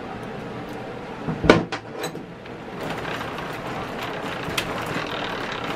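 Wheels and open differential of a homemade walk-behind tractor spun by hand, a tire-chained wheel among them: a clunk and a few clicks about a second and a half in, then a steady whirring rattle of the wheels, chains and gears turning freely, the stiff spider gears just freed up with oil.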